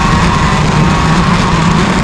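IAME KA100 single-cylinder two-stroke kart engine running at high, near-steady revs out on track, with wind noise on the microphone.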